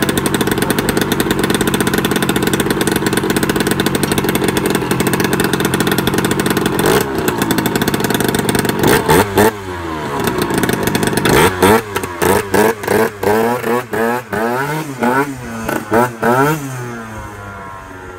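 Yamaha BWS scooter's 80cc two-stroke engine with a Yasuni expansion-chamber exhaust, idling steadily, then blipped through a dozen or so quick revs from about nine seconds in. Near the end it pulls away and fades into the distance.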